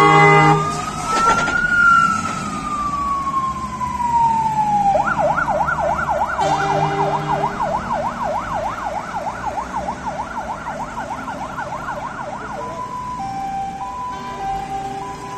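Fire engine siren on an emergency run, with a horn sounding just at the start. It opens with a slow wail that rises and falls, switches about five seconds in to a fast yelp, then near the end to an alternating two-tone hi-lo. It gets steadily fainter as the truck drives away.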